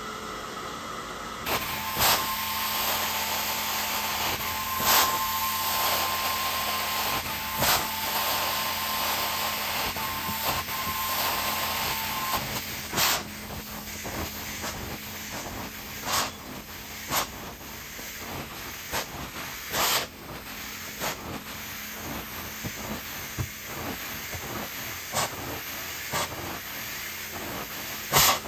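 Carpet cleaning wand doing hot water extraction: a steady hiss of spray and suction, with a sharp knock every few seconds. A low hum underneath stops about twelve seconds in.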